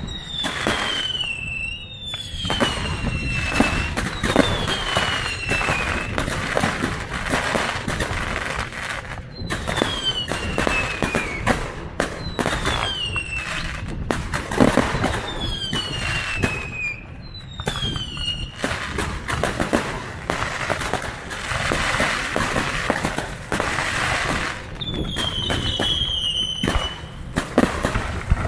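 Fireworks display: a steady string of bangs and crackling from aerial shells, with whistling fireworks that each fall in pitch over about a second, about nine times.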